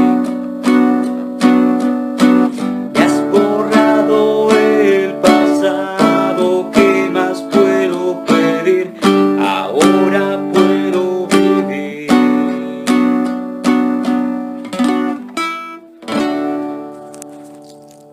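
Guitar chords struck in a steady rhythm as the song's instrumental ending. A final chord about sixteen seconds in rings on and fades out.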